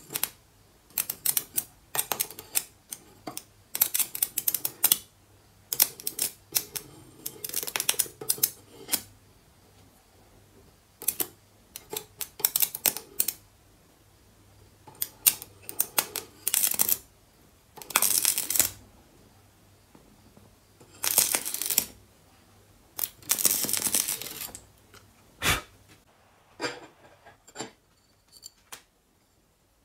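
Electric arc sparking and crackling in repeated short bursts of a second or two, from a homemade ballast-based welder being struck against metal, over a faint low mains hum that stops about two-thirds of the way through.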